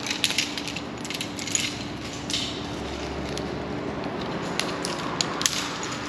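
Metal carabiners clinking and their gates clicking as climbing hardware is unclipped and handled, in scattered irregular clicks over a steady low hum.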